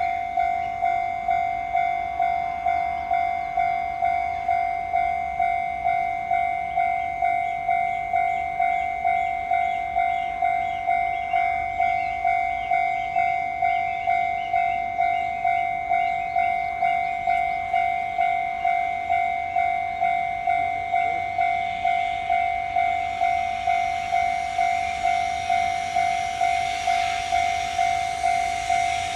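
Japanese level-crossing warning bell ringing in an even, steady clang, about three strokes every two seconds. From about 22 seconds in, the rushing noise of an approaching freight train rises beneath it.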